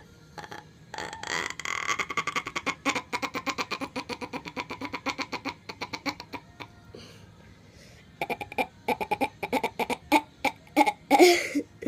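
A girl's voice imitating a goat's bleat: a long, rapidly quavering 'meh' lasting several seconds, then a second run of shorter pulsing bleats that is loudest near the end.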